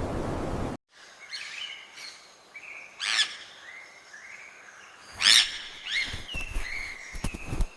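Steady rushing noise that cuts off abruptly under a second in. Then wild birds chirp and call, with two loud sweeping calls about three and five seconds in.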